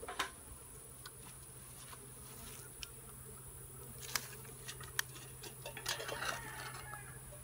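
Honeybees buzzing steadily around an opened nuc box and hive, with several sharp clicks and knocks from the hive equipment being handled, the sharpest about four and five seconds in and a short rustling clatter around six seconds.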